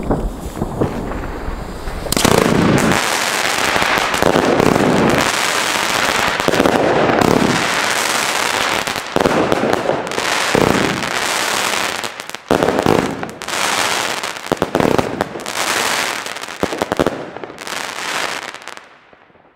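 500-gram double-deck firework fan cake (Nordlicht 'Krawall') firing: rapid shots one after another under dense crackling from its crackling-star bursts. It builds to full strength about two seconds in and dies away just before the end.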